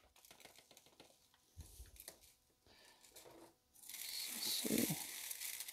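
Near silence with a few faint ticks, then from about four seconds in a rustling, crinkling hiss as a gloved hand digs through gravelly paydirt in a wire kitchen strainer.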